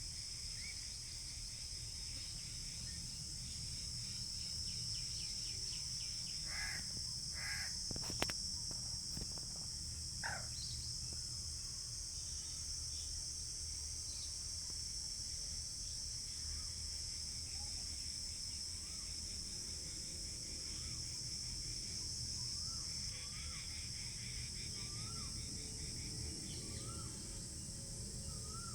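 Outdoor pond ambience: a steady, high-pitched drone of crickets and other insects over a low rumble. A few bird calls come through, including two short caws about seven seconds in and another around ten seconds, and a sharp click just after eight seconds. A small bird repeats a short rising chirp every second or two in the second half.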